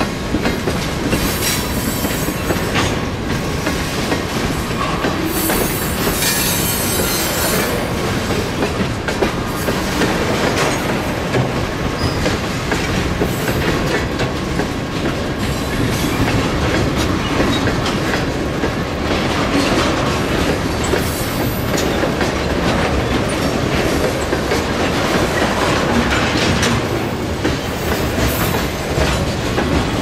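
Cars of a mixed freight train (tank cars, covered hoppers, autoracks) rolling steadily past close by: continuous rumble and clatter of steel wheels on the rails.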